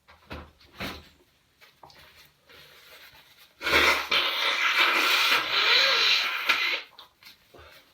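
A man blowing his nose: one long, noisy blow lasting about three seconds, starting a few seconds in.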